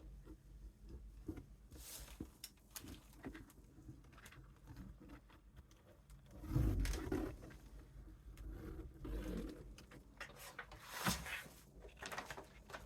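Handling noises from paper craft work: a gift bag and poster board being rustled and pressed into place, with scattered small clicks, a louder muffled bump about halfway through and a sharp knock near the end.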